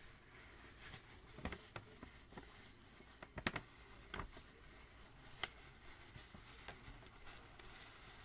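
Faint handling of a sheet of paper, with light rustling and a few soft scattered clicks and taps.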